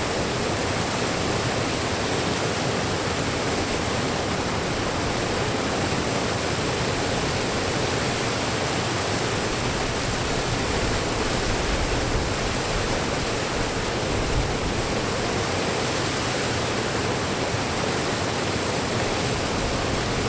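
Waterfall rushing steadily, close by and very noisy: water pouring down the falls and churning into white foam below, an even rush with no breaks.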